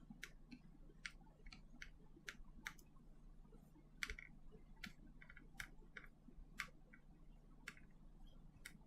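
Faint, irregular light clicks and taps of small smartphone parts being handled and pressed down during reassembly, over a low steady hum.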